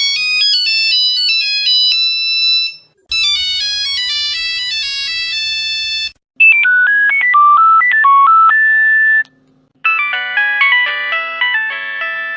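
Four Nokia phone ringtones played one after another, each a short electronic melody of about three seconds that stops abruptly before the next begins after a brief gap.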